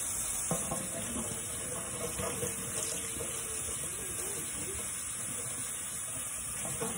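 Kitchen faucet running in a stainless steel sink as a bunch of long green vegetables is rinsed under it: a steady hiss of water with a few small knocks from handling.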